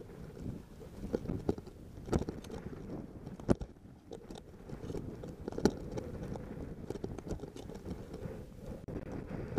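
Boots with crampons crunching up through snow and an ice axe being planted, in irregular steps with several sharper strikes, over a steady low rumble.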